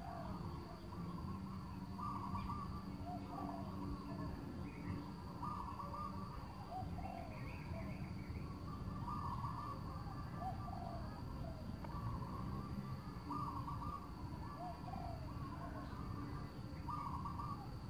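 Birds calling over and over in short warbling phrases, every second or two, over a steady low rumble.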